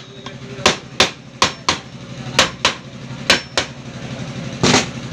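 A hammer tapping the aluminium crankcase half of a Bajaj CT 100 engine down onto the other half to seat it, about ten sharp blows at an uneven pace, mostly in pairs, the last one near the end heavier and longer.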